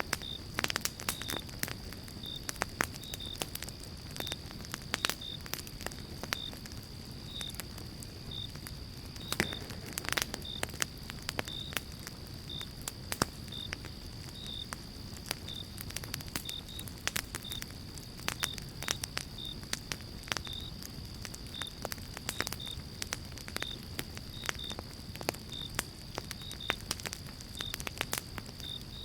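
Wood fire in a fireplace crackling, with irregular sharp pops and snaps over a low steady rush. A faint steady high tone and short high chirps, about one or two a second, run underneath.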